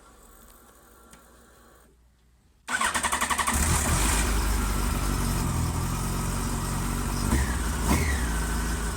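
Yamaha FZ1 Fazer's inline-four engine started on a fresh battery. About three seconds in, the starter cranks briefly and the engine catches at once, then idles steadily with two short revs near the end. The quick start shows the battery-related no-start has been cured.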